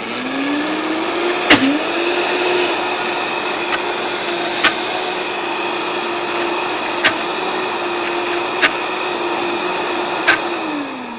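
Vitamix blender motor spinning up and running at a steady pitch while blending a thick jam, with a brief dip in pitch early on. It winds down near the end. A few sharp clicks sound over the motor.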